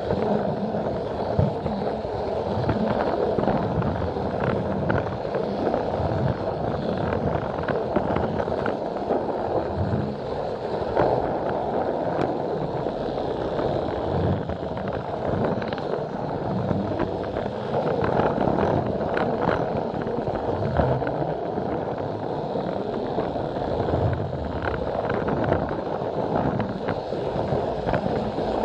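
Plarail toy train running along plastic track, heard from a camera riding on the train: a steady whir from its small battery motor and gears, with frequent clicks as the wheels cross track joints.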